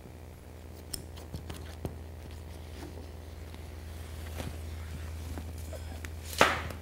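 Clear vinyl pattern sheet being handled and trimmed: light scattered clicks and rustles, then one louder sharp crackle of plastic near the end.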